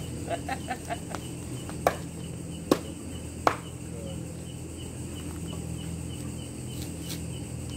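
Crickets chirping steadily at night. Over them come a quick run of light clicks, then three sharp knocks a little under a second apart.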